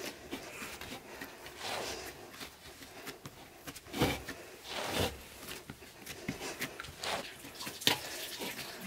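Hands kneading a large mound of soft dough in an aluminium basin: irregular soft, wet squishing presses as the fists push into the dough, with louder pushes about four and five seconds in and again near the end.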